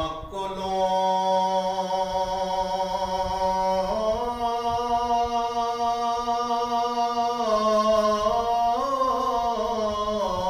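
A man singing a Punjabi Sufi kalam unaccompanied, in long held notes. His pitch steps up about four seconds in and shifts again near the end.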